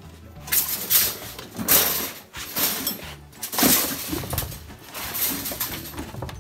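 A mini milling machine on its plywood shipping board being lifted and slid onto a wooden workbench: irregular scraping, rustling and knocking of the board and machine.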